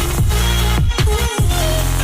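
Electronic background music with a heavy bass line and quick downward pitch sweeps a few times, no singing.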